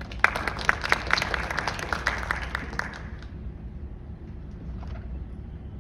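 Brief applause from a small audience, a few people clapping for about three seconds and then dying away.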